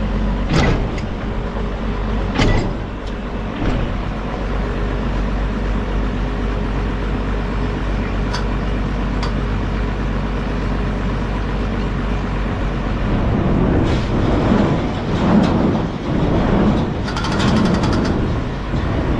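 Farm tractor engine running steadily, with sharp metallic clanks and rattles now and then, the engine getting louder and more uneven in the last several seconds.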